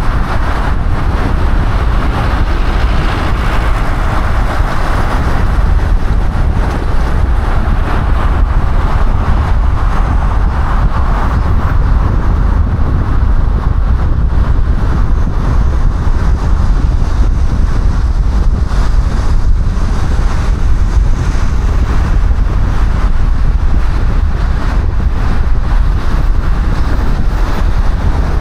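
Car driving at speed: steady, loud road and wind noise with a deep rumble.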